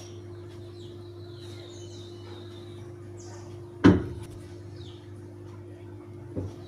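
Top-load washing machine running its tub clean cycle with a steady low hum, broken by one sharp knock about four seconds in and a lighter click near the end.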